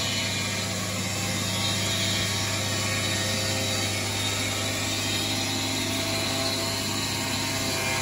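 Mighty Mite portable circular sawmill running steadily under load as its circular blade saws lengthwise through a log. The engine hum stays at one even pitch, mixed with the hiss of the blade cutting wood.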